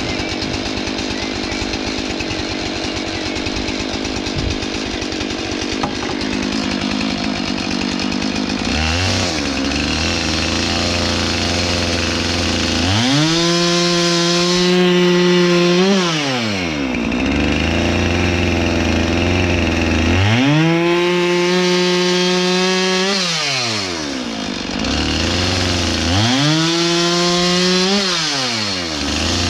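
Chainsaw cutting points on wooden fence posts. It runs steadily under load at first, then revs up to full throttle and drops back to idle three times.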